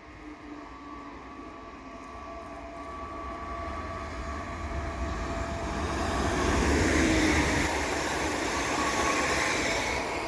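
Electric S-Bahn train (DB class 423) pulling into the station: a steady electric motor whine over wheel-on-rail noise, growing louder and loudest about seven seconds in.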